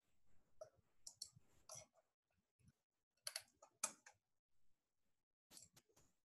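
Faint, irregular clicks against near silence, the loudest pair a little past the middle.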